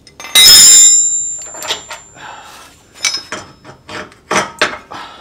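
A loud metallic clang about half a second in that rings on for a couple of seconds, then scattered lighter knocks and clinks of steel tools and suspension hardware being handled as a lower control arm bolt is taken out.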